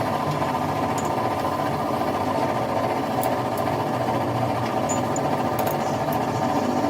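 A workshop machine running steadily, with a fast, even mechanical clatter.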